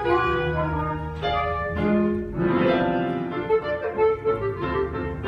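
Instrumental musical-theatre accompaniment with an orchestral sound, playing a passage of held notes that change about once a second.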